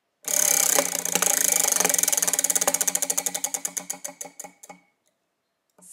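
Spinning prize wheel clicking as it turns: rapid ticks that slow steadily and stop after about four and a half seconds, the wheel coming to rest on its result.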